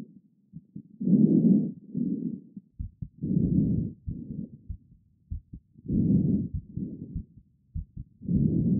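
Breathing heard through a stethoscope: pairs of rushing sounds, the first of each pair louder, recurring about every two and a half seconds, with short heartbeat thumps in the gaps.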